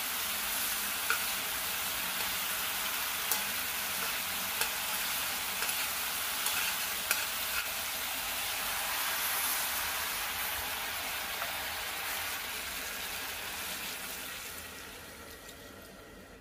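Chicken pieces sizzling as they fry in a pan, with a few light clicks of the stirring utensil against the pan; the sizzle dies away near the end.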